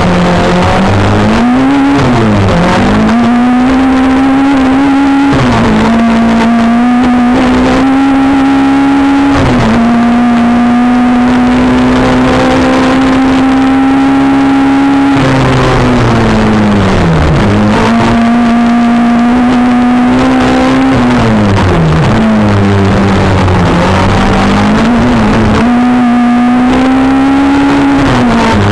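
Race-prepared VW Golf GTI engine heard from inside the cabin, driven hard up and down the rev range. Its pitch climbs, then falls sharply at gear changes and braking about two, five, fifteen to seventeen, twenty-two and twenty-five seconds in. It holds high revs steadily for several seconds in the middle.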